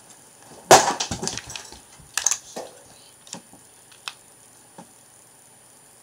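Loose plastic Lego bricks clattering for about a second, again briefly about two seconds in, then a few single clicks as pieces are pressed on.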